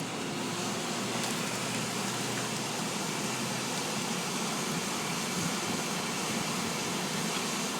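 Steady rushing noise of the running furnace and its air blast, even in level throughout.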